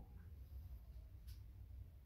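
Near silence: a steady low room hum, with one faint, brief tick about a second in.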